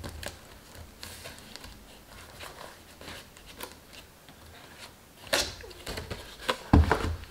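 Cardstock rustling and scraping as hands press the glued paper sides of a small box into place, with louder handling noise about five seconds in and a dull thump near the end as the box is moved on the mat.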